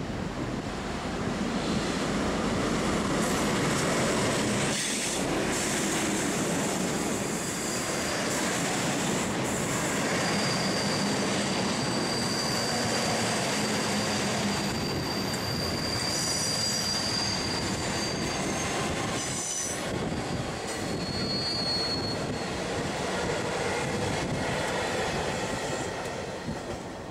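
A V/Line passenger train running past close by, with steady wheel and rail noise. A high-pitched wheel squeal rings for several seconds through the middle, and a shorter one follows a few seconds later.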